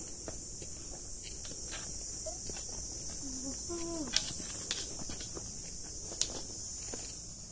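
Steady high-pitched drone of insects in dry forest, with a few sharp ticks of footsteps on the dry path about four seconds in and again near six seconds.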